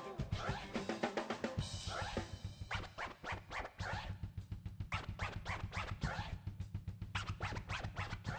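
Live turntable scratching, rapid back-and-forth strokes, over a drum-kit beat and a steady bass line.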